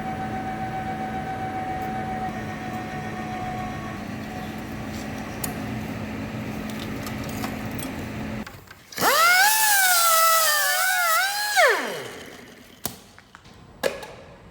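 Workshop power tools: a steady machine hum runs for about eight seconds and stops. Then a handheld power tool motor speeds up sharply, its pitch wavering for about three seconds as it works, and winds down. Two sharp metallic knocks come near the end.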